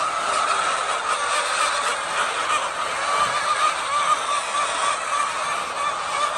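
A large flock of chickens calling all at once, a dense, unbroken chorus of clucking with no single bird standing out.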